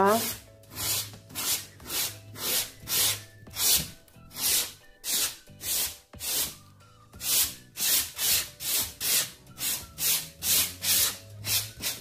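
Coarse 150-grit sandpaper rubbed by hand back and forth over a painted board, in even strokes about two a second. It is wearing through the top coat of paint to bring the base colour through for a distressed wax patina.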